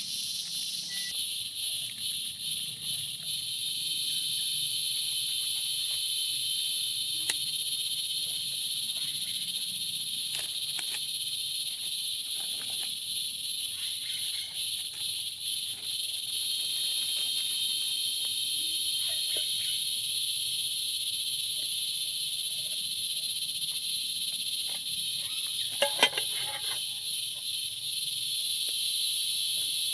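Steady, high-pitched chorus of forest insects, with one continuous drone near 4 kHz and a higher one above it. A few faint clicks are scattered through it, with a short louder cluster of clicks near the end.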